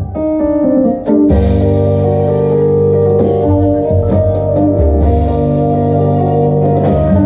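Live tango band playing, with accordion, upright bass, keyboard and drum kit: sustained melody notes over a moving bass line, the music thinning briefly about a second in and then coming back in full.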